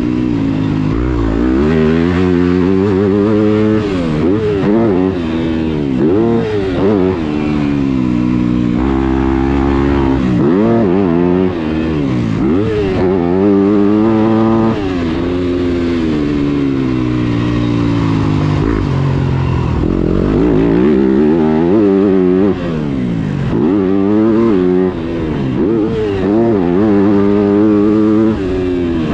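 A 2021 Yamaha YZ250F's four-stroke single-cylinder engine under hard riding, revving up and dropping off over and over as the throttle is opened and closed around a motocross track.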